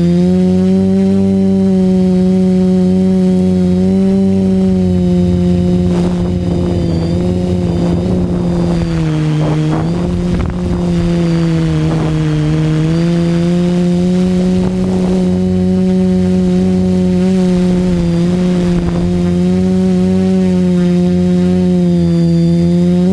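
Reptile 550 quadcopter (TBS Discovery clone) in flight, its electric motors and propellers giving a loud, steady buzzing hum close to the onboard camera. The pitch sags for a few seconds about ten seconds in and then climbs back as the throttle changes.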